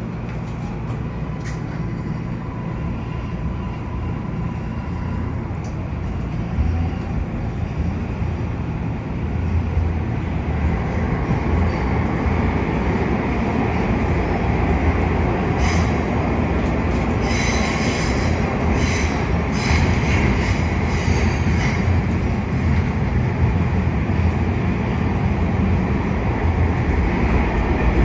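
Interior of a Hitachi CQ311 rapid-transit car pulling out of a subway station and running into the tunnel, the rumble of wheels on rail growing steadily louder as the train gathers speed. Midway there is a stretch of high-pitched wheel squeal and clicking from the rails.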